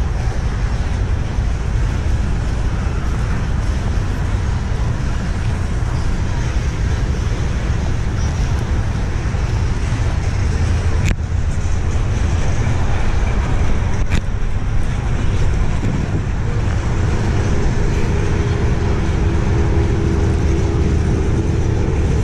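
Steady low rumble of road traffic, with two sharp clicks, one about halfway through and one about three seconds later.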